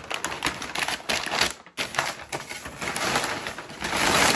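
Brown wrapping paper crinkling and rustling as it is pulled off a dish and crumpled by hand, a dense crackle that stops briefly just under two seconds in and is loudest near the end.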